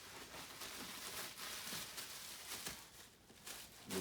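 Large bubble wrap rustling and crinkling in soft, irregular handling noises as it is wound around a portable typewriter, easing off about three seconds in.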